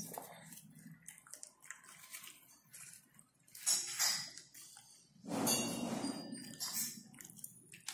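Craft paper being handled: rustling and scraping as a green paper strip is folded and marked with a pencil, in irregular bursts, the loudest about four and five and a half seconds in.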